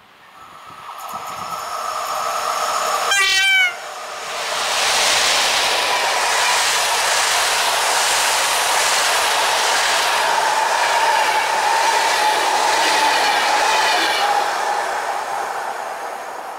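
Electric locomotive (PKP EP07) sounding one long horn blast of about three seconds as it approaches: the Rp1 'attention' warning signal. The horn cuts off abruptly, and the Intercity express's coaches pass at speed with a steady rush and clickety-clack of wheels on rail, which fades near the end.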